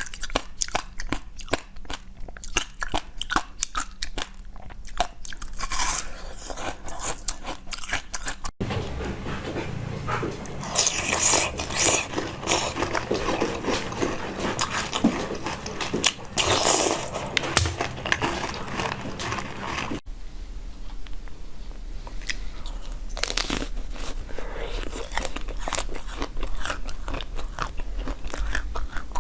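Close-miked eating: crisp bites and crunching chewing, a dense run of small cracks and crackles. It comes in three stretches joined by abrupt cuts, about a third and two-thirds of the way through.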